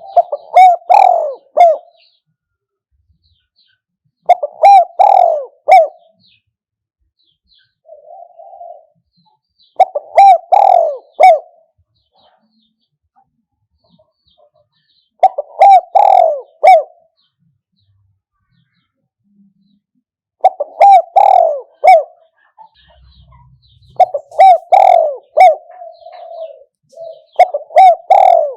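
Spotted dove cooing: short phrases of several quick coos, repeated about every four to six seconds, seven phrases in all, with a fainter coo between some of them.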